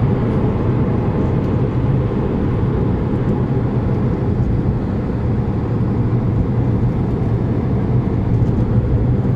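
2006 Maserati Quattroporte's 4.2-litre V8 cruising at a steady speed, heard inside the cabin as an even low hum mixed with tyre and road noise.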